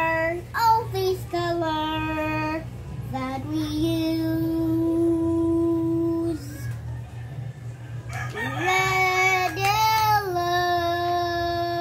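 A young child singing long, drawn-out notes without clear words: one note held steady for a couple of seconds in the middle, then a rising slide into another long held note later on. A steady low hum runs underneath.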